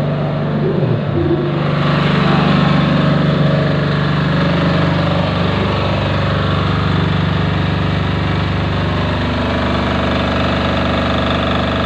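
Small 5000-watt diesel generator set running steadily at constant speed. Its engine note becomes fuller and brighter about two seconds in.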